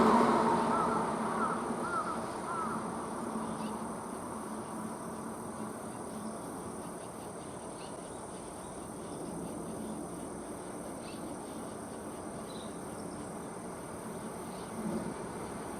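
A passing vehicle fading away over the first few seconds, then steady outdoor ambience with a constant high-pitched hiss and a low hum. A few faint short chirps come early, and scattered faint ticks follow.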